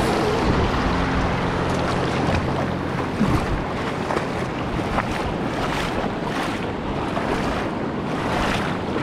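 Legs wading through a shallow, fast mountain stream, with water splashing and rushing around the shins and wind buffeting the microphone.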